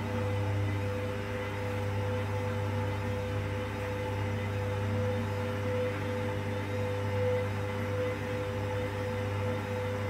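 Hoover Dynamic Next front-loading washing machine tumbling its load near the end of the cool-down on a 90° cotton wash: a steady motor hum with a constant whine over the swish of the turning drum.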